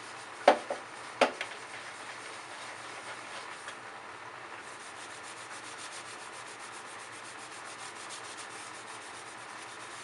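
Scrubber sponge rubbing back and forth over a ceiling fan blade coated in Soft Scrub cleanser, in steady scrubbing strokes that become quicker and more even in the second half. A couple of sharp knocks about half a second and a second in.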